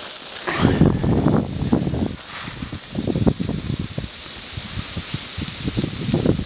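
Several Nico coloured sparklers burning in the hand, giving a steady fizzing hiss, with an irregular low rumbling underneath.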